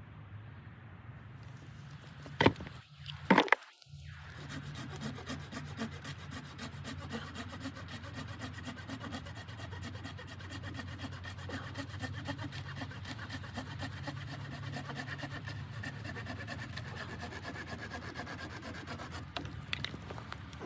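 A few sharp knocks, then a steady scraping sound that runs on.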